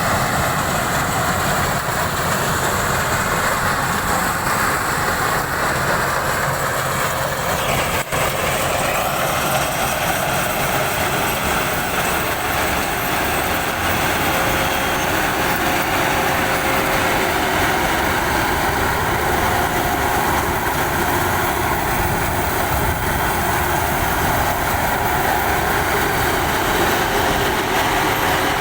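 Rice combine harvester running steadily at work, a constant engine and machinery noise, with a brief break about eight seconds in.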